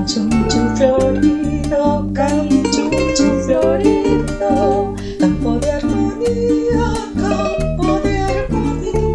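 Venezuelan cuatro, mandolin and bass playing an instrumental passage in a 6/8 danza oriental rhythm in G minor: a steady plucked rhythm over a pulsing bass line, with a picked melody on top.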